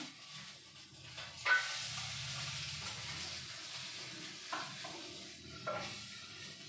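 Chopped garlic hitting hot oil in a wok, starting with a sudden loud sizzle about a second and a half in that then fades slowly. A couple of light clinks come near the end.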